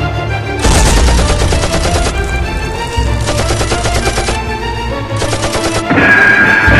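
Rapid automatic gunfire sound effects in several bursts over the music's steady tones.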